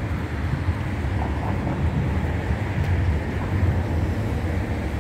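Steady low rumble of wind on the microphone, with a fainter hiss above it.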